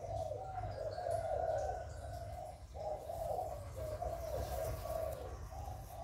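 Spotted dove cooing, a run of low coos with a short break about two and a half seconds in, over a low steady hum.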